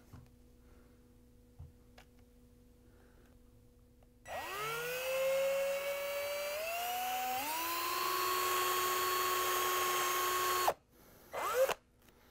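Electric drill with an 11/32-inch bit drilling out a locating pin broken off the old plastic transmission housing, stuck in a KitchenAid mixer's gear case. The motor whine starts about four seconds in, climbs in pitch in steps, runs steadily for a few seconds and cuts off suddenly, then comes back as a short rising burst near the end.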